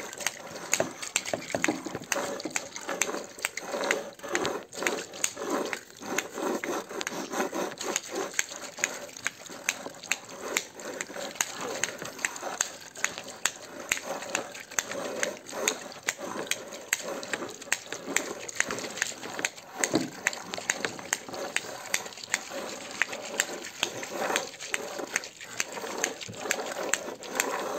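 Children imitating underwater sea sounds with classroom materials: a continuous water-like hiss full of irregular small clicks and taps.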